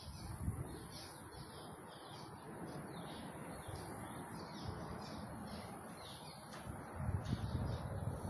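Songbird chirping: short, high, down-slurred notes repeated about two a second. Low wind rumble on the microphone grows near the end.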